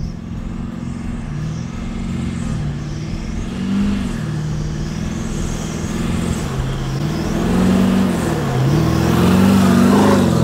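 Toyota LandCruiser engine working hard in low range while towing a caravan through soft sand; the revs rise and fall again and again as the throttle is fed on and off, getting louder toward the end.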